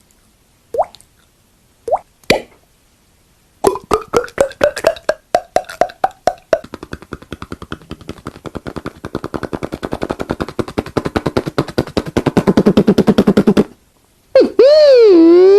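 Mouth sound effects by one person: a few separate water-drop plops, then a run of popping clicks that speeds up into a fast, steady rattle, growing louder before it stops abruptly. Near the end a vocal siren imitation starts, its pitch dipping and then rising.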